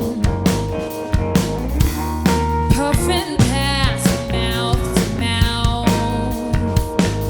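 Rock band playing live: drum kit, electric guitar and bass guitar together, with the drums keeping a steady beat.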